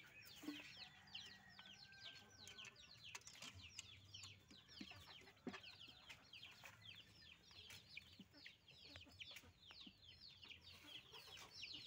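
Chicks peeping continuously, many short falling cheeps overlapping, with a few faint knocks.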